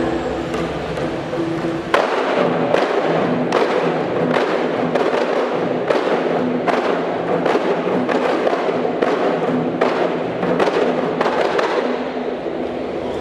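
A group of kompang, Malay hand-held frame drums, struck by hand in unison and interlocking patterns: a dense, steady stream of sharp slaps.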